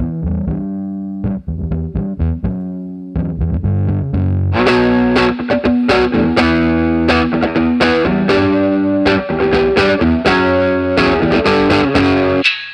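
Electric guitar played through the Seam Ripper, an analog three-band parallel overdrive and distortion pedal, giving a saturated, distorted tone. About four and a half seconds in, the tone turns much brighter and fuller, and the playing stops abruptly near the end.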